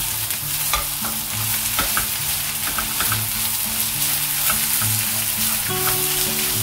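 Onions and coarsely ground dal sizzling in hot oil in a non-stick frying pan, with a spatula stirring and scraping through them in light, scattered clicks as the mixture is sautéed.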